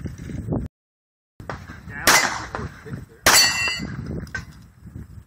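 Two pistol shots about a second apart, each met by the clang of a hit steel plate target; the second plate rings on briefly with clear metallic tones.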